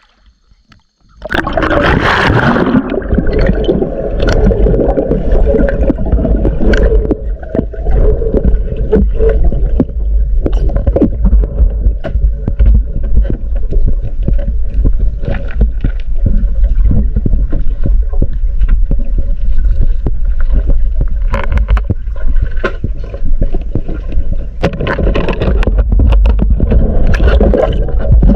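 Water noise heard underwater by a diving spearfisher's camera in a river pool: a loud, steady low rumble with gurgling and many scattered clicks, starting about a second in.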